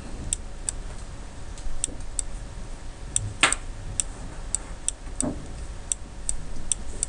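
Light, sharp clicks of a stylus tapping down on a pen tablet as words are handwritten, coming unevenly, two or three a second, with a short louder noise about three and a half seconds in.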